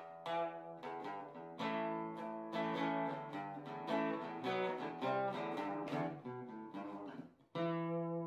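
Acoustic guitar music: a run of plucked notes, then a short break and a final chord struck near the end and left ringing.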